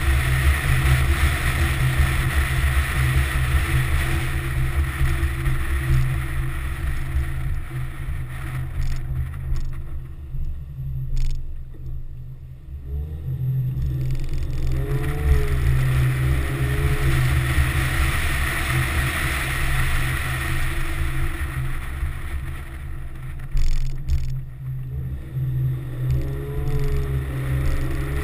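Infiniti G35 driving slowly, heard from a camera mounted on the car's outside: steady wind buffeting and road rumble, with the V6 engine note rising as the car pulls away after easing off, once about halfway through and again near the end.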